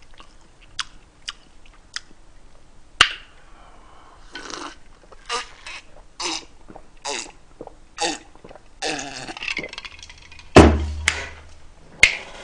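A man gulping a drink, with a run of swallows about once a second, then one loud burp about ten seconds in.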